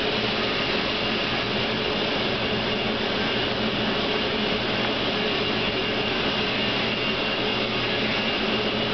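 Steady drone of running machinery: an even hiss with a few steady low hums and a faint high whine.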